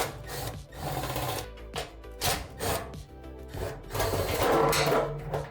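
Background music with a bass line moving in held notes, over intermittent scraping and clicking noises.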